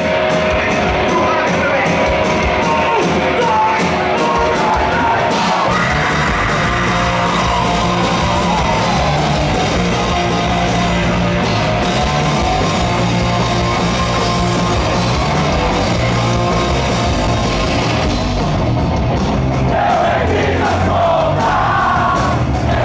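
Hardcore punk band playing live and loud: distorted guitars and bass over a fast, steady drum beat.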